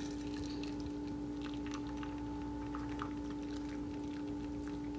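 Hot water poured from a kettle into a ceramic mug over a tea bag: a soft, steady trickle, with a steady hum underneath.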